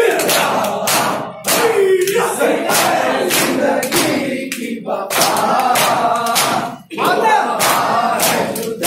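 Crowd of men doing matam, beating their chests with open palms in a steady rhythm of about two slaps a second, while chanting a noha loudly together.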